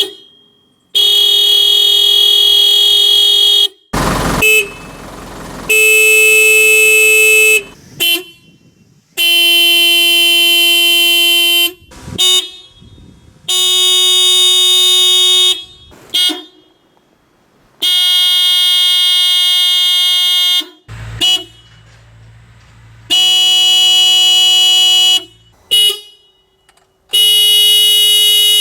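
Car horns from a series of different Japanese cars, one after another: each gives a long steady blast of two to three seconds, with short toots in between, and the pitch changes from car to car. About four seconds in there is a thump followed by a short rush of noise.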